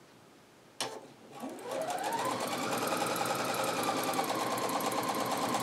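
Computerized sewing machine starting to stitch a straight seam. A sharp click comes just under a second in, then the motor whine rises over about a second as it speeds up and settles into a steady, fast run of rapid needle strokes.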